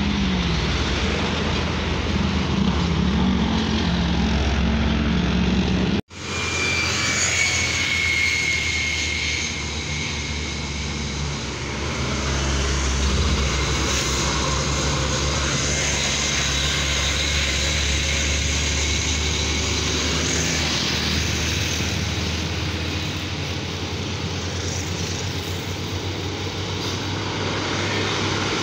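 Heavy diesel trucks hauling container trailers up a hill drive past one after another, their engines running under load with a steady low drone. The sound cuts out for a moment about six seconds in, then comes back.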